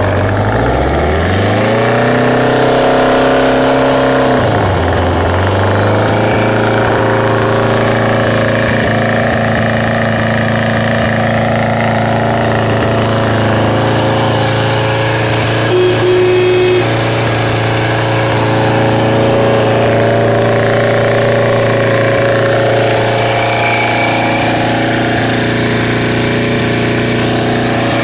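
A 1980 Suzuki GS550L's air-cooled inline-four engine running just after a cold start with the choke on. The revs rise over the first two seconds, hold, then drop back about four and a half seconds in to a steady fast idle. A brief steady tone sounds about sixteen seconds in.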